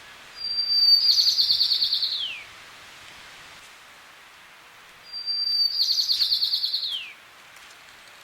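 White-crowned sparrow singing twice over a steady background hiss. Each song opens with a high steady whistle, runs into a fast trill and ends in a falling slur.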